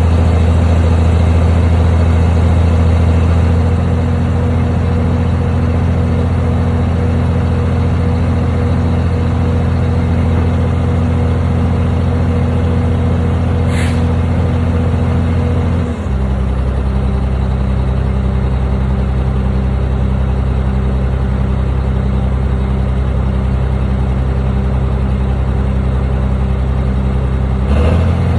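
Heavy construction machine's engine running steadily with a deep, even hum; about halfway through its note shifts down and settles at a new steady pitch. Two brief sharp clicks sound over it, one just before the shift and one near the end.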